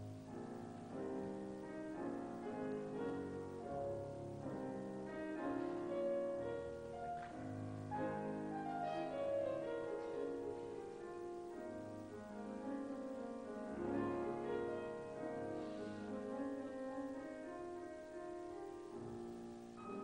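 Classical piano music, slow overlapping notes that swell and fade in phrases.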